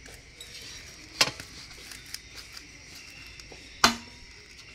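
Two sharp metal knocks as used brush-cutter engine heads and a hand tool are handled and set down, one about a second in and a louder one near the end.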